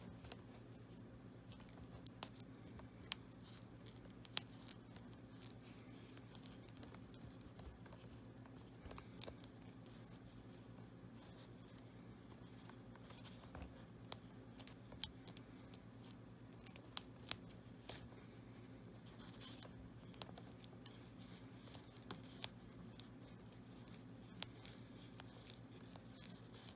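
Faint, scattered clicks and rustles of fingers winding thread tightly around the frayed tip of a hockey skate lace, over a steady low hum.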